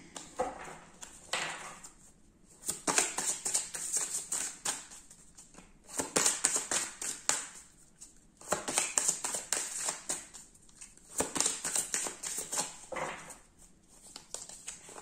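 Oracle card deck being shuffled by hand: about five bouts of rapid rustling and flicking cards, each a second or three long with short pauses between.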